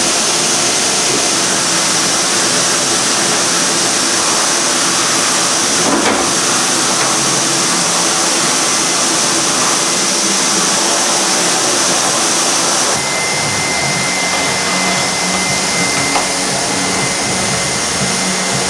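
Household vacuum cleaner running steadily. About thirteen seconds in its sound changes: it gets slightly quieter and a steady high whistle comes in.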